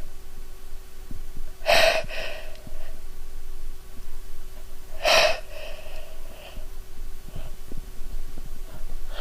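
A woman's sharp, gasping in-breaths and sniffs as a sneeze builds, her nose tickled by a soap's scent. There are two louder bursts, about two and five seconds in.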